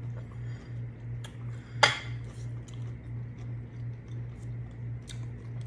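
Eating at the table: soft chewing and small clicks of cutlery, with one sharp clink of a fork on a plate about two seconds in. A steady low hum pulsing about three times a second runs underneath.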